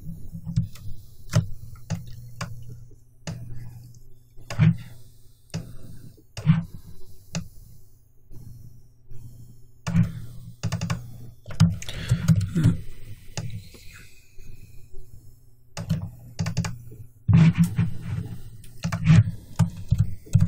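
Scattered clicks and dull knocks from a computer mouse and keyboard being worked, at irregular intervals, busiest about ten seconds in and again near the end.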